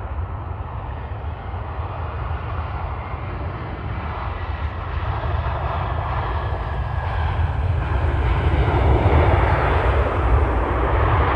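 Boeing 737-800's CFM56 jet engines running during the landing and roll-out, a steady rushing engine noise that grows louder toward the end.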